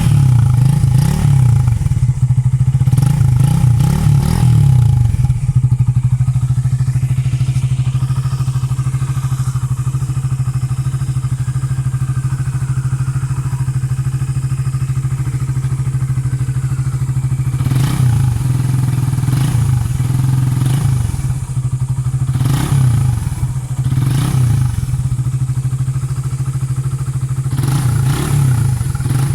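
Suzuki Raider 150 carburetted single-cylinder four-stroke engine idling through an Uma Racing aftermarket power pipe exhaust, with short throttle blips several times in the first few seconds and again in a cluster through the second half.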